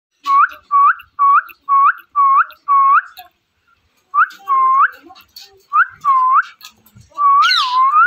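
Rose-ringed parakeet whistling. It gives a quick run of six short rising whistles, then after a pause a few longer swooping ones, and near the end a long whistle that wavers up and down.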